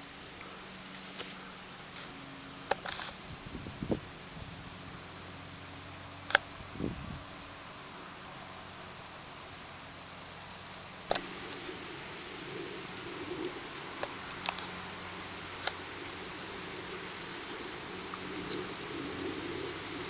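Crickets and other insects singing in the garden: a steady high trill with a regular pulsing chirp under it. A few sharp clicks and rustles of handling come through, the loudest about 6 and 11 seconds in.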